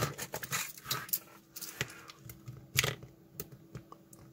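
Irregular light clicks and taps of a small screwdriver working against the seam of a plastic USB charger's case.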